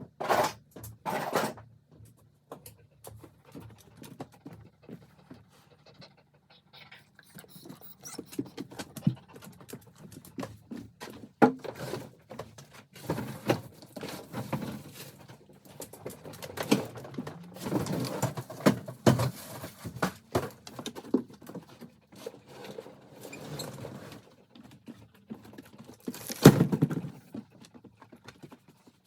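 Irregular knocks, clicks, scrapes and rustling of hands-on work, with a sharp knock about 26 seconds in as the loudest event and a faint steady low hum underneath.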